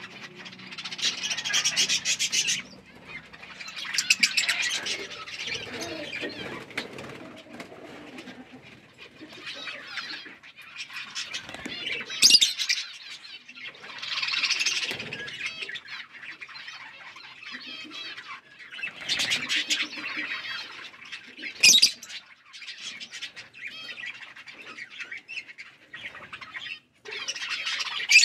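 Pet parrots chirping, in loud bursts of chatter every few seconds with quieter chirps between them.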